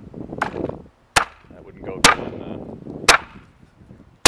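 Machete chopping through a green iguana onto a wooden board: four sharp chops about a second apart, with a lighter one just before them.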